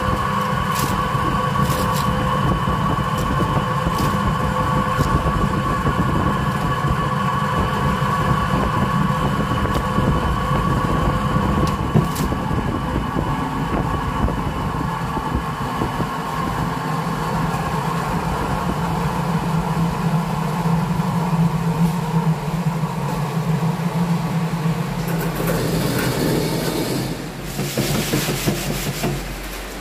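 Electric centrifugal oil spinner running steadily with its basket spinning, throwing the oil out of freshly vacuum-fried jackfruit chips. Near the end the machine stops and the dry chips rattle and scrape as they are stirred with a scoop.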